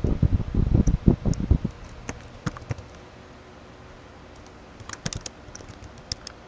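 Typing on a computer keyboard: a quick run of keystrokes in the first second and a half, a few scattered clicks, a pause, then another short run of keystrokes about five seconds in.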